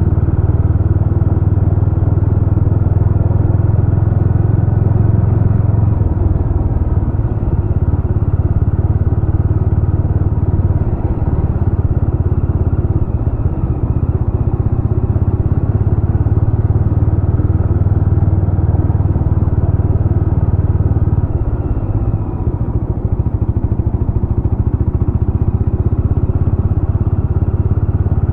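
Jawa RetroTrail 650's 650 cc single-cylinder engine running steadily as the motorcycle is ridden. The engine note changes about six seconds in and again near twenty-one seconds in.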